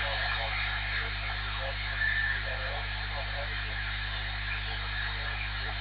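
Loudspeaker of an AnyTone AT-5555N CB radio receiving on upper sideband: steady band hiss with a distant station's voice faint in it, at the edge of the noise. A steady mains hum runs underneath.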